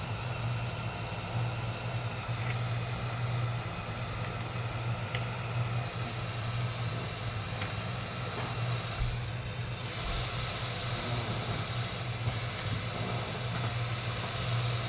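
Hot air blower running steadily, a low hum with an airy hiss, heating the old touch bar so it can be pried up; a few faint ticks from tools on the laptop.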